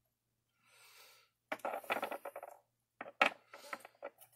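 Small rough crystals clicking against each other and a hard surface as they are handled and set down, with some rustling between the clicks. The sharpest click comes a little past three seconds in.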